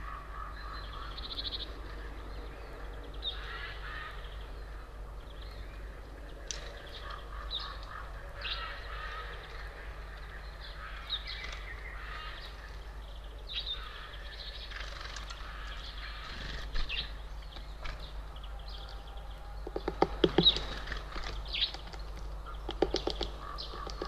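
Small songbirds calling and chirping on and off over a steady low hum. About twenty seconds in, and again near the end, comes a quick burst of loud, sharp knocks or clicks, the loudest sound here.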